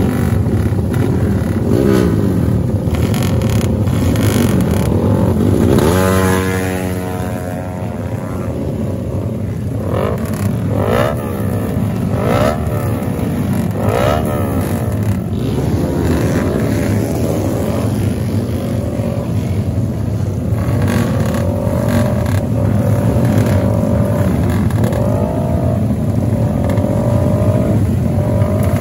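Motorcycle engines with aftermarket exhausts running and being revved in repeated short blips, each rising and falling in pitch, over a steady engine drone.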